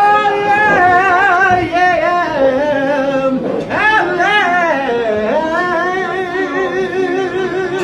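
A man singing solo, long held notes with a heavy vibrato.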